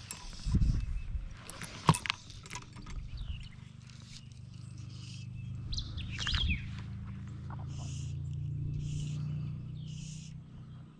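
A bird calling over and over, a short high note about once a second from about five seconds in, over a low steady hum. A few sharp knocks and clicks come in the first three seconds.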